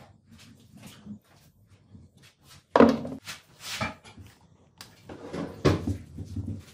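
Knocks and handling clatter as wooden and plastic knife-handle parts are picked up and fitted onto a threaded rod on a workbench. The loudest knock comes about three seconds in, and another follows near the end.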